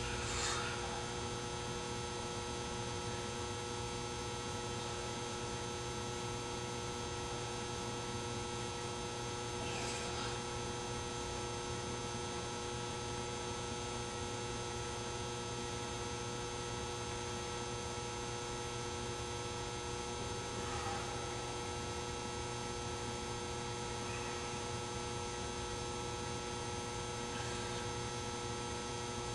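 Steady electrical mains hum with several constant whining tones over a hiss, and a few faint, brief sounds now and then.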